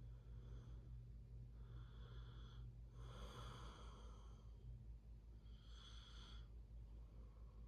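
A sleeping person snoring faintly, with about four breaths; the strongest comes about three seconds in. A steady low hum runs under them.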